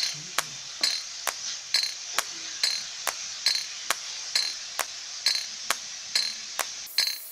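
Wooden spoon knocking against an aluminium pot a little over twice a second as it stirs, over the steady sizzle of chopped leeks and spices frying in coconut oil.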